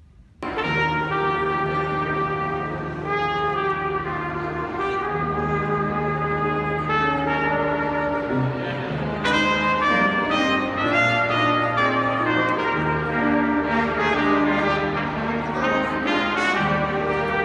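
A small brass ensemble with a tuba playing together in held chords over a steady tuba bass line. The music starts abruptly just after the beginning.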